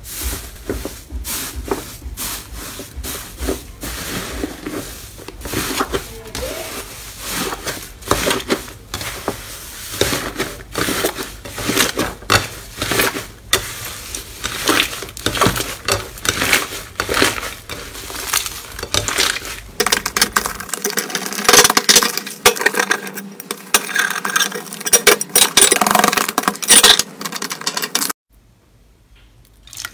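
Crumbly green slime being squeezed, kneaded and pulled apart by hands, making a constant stream of sticky crackles and small pops. About two thirds of the way through the crackling turns louder and crisper, then stops abruptly near the end.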